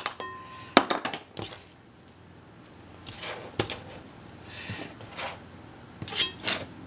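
A few sharp knocks and clicks in the first second and a half as shelled edamame are tipped from a ceramic bowl into a rice cooker's nonstick inner pot, then quieter handling noises.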